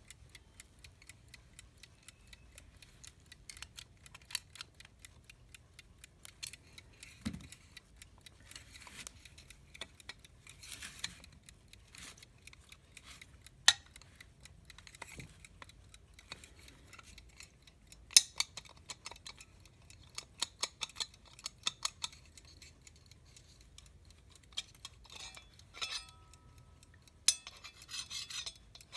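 Irregular small metallic clicks and taps from handling and fitting the bell and its retaining tabs on a vintage US Time Waterbury alarm clock, with a few sharper clicks partway through and a brief faint ring near the end.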